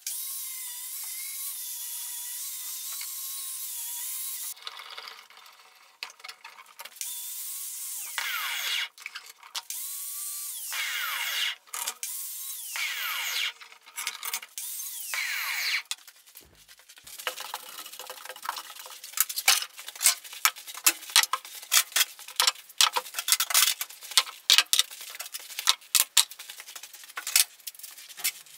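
Electric drill spinning a wire brush against a rusty steel jack part held in a vise. It runs steadily at first, then stops and restarts several times with the pitch falling and rising, and in the second half gives way to a rapid, irregular run of sharp scratchy clicks.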